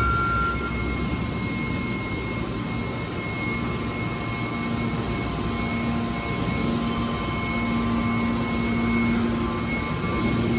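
Hydraulic scrap-metal baler's power unit running, a steady mechanical hum and whir with a low tone that grows stronger about halfway through.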